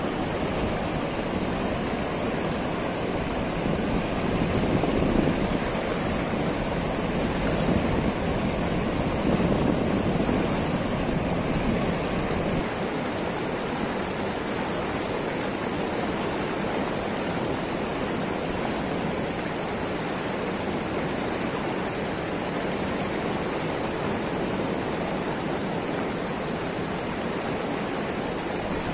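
Steady rush of fast river water pouring over and below a concrete weir. The low rumble thins a little about twelve seconds in.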